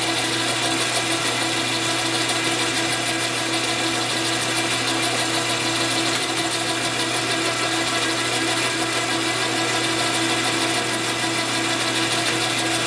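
Jet metal lathe running steadily with its chuck spinning: a constant gear whine and hum from the headstock.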